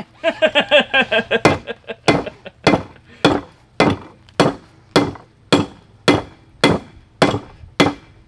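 Hand hammer striking red-hot steel held in tongs on an anvil. It beats a steady rhythm of about two blows a second, beginning about a second and a half in, and each blow has a short metallic ring.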